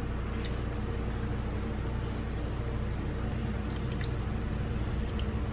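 Soy milk poured from a carton into a plastic measuring scoop and tipped over rolled oats in a bowl: faint liquid pouring with a few small clicks, over a steady low hum.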